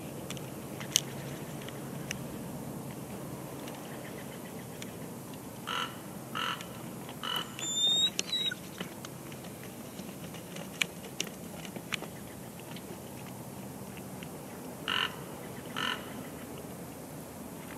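Bald eagle calls: a few short, harsh chirps that run into one high, thin whistled note about eight seconds in, and then two more chirps near the end. Under them is a steady outdoor hiss with a few sharp clicks, the loudest about a second in.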